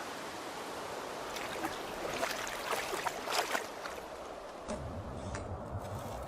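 Water splashing and trickling in shallows, with a cluster of sharp splashes from about one to three and a half seconds in. A lower, steady rush of water comes in near the end.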